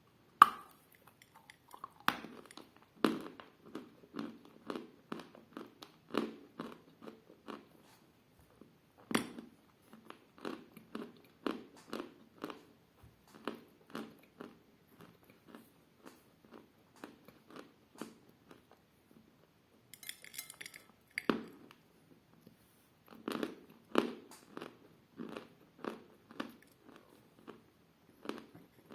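A person biting and chewing lumps of edible chalk close to the microphone: sharp crisp bites now and then, followed by runs of muffled crunching chews, about two a second.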